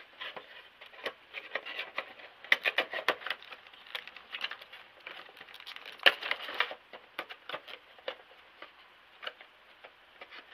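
Packaging being handled: a cardboard Funko Pop box and its wrapping crinkling and rustling in irregular bursts of small clicks and crackles, busiest about two and a half and six seconds in.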